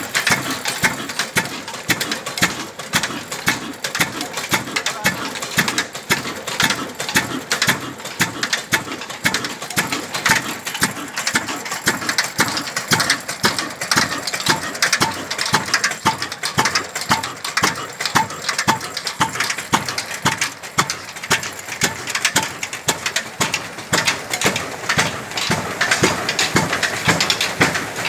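Old 16 hp single-cylinder flywheel diesel engine ('black engine') running steadily, a constant rhythm of evenly spaced exhaust knocks.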